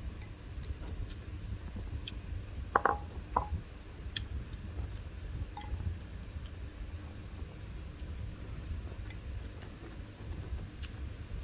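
Eating from a porcelain bowl with chopsticks: two short clinks close together about three seconds in, with faint scattered ticks, over a steady low rumble.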